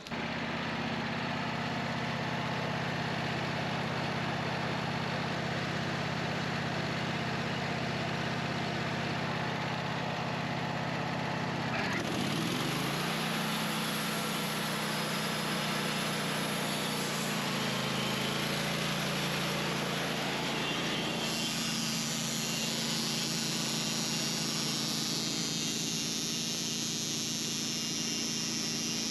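Portable band sawmill's engine running steadily. About twelve seconds in its note shifts and settles, and about twenty-one seconds in a hiss in the upper range grows stronger.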